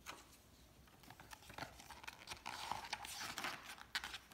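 Faint rustling and light handling noises of paper as a picture book's page is turned by hand. There are scattered soft clicks, with a longer rustle about two and a half seconds in.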